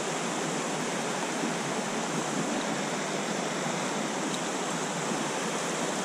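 Steady rush of a shallow, rocky trout stream pouring through riffles and over stones.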